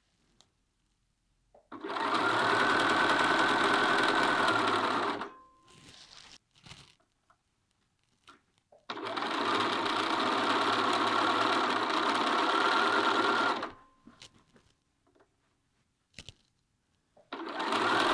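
Bernina B 570 sewing machine stitching a seam in three runs: one of about three seconds starting near two seconds in, a longer one from about nine seconds in, and a third starting just before the end. Faint clicks fall in the quiet pauses between the runs.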